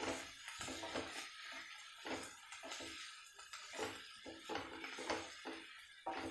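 A spatula scraping and stirring crumbled paneer and masala around a non-stick pan, in irregular strokes about two a second.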